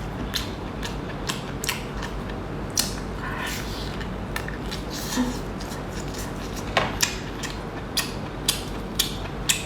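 Crisp crunching and clicking of someone eating a fried chicken cutlet, with separate sharp crunches about once or twice a second that come closer together near the end.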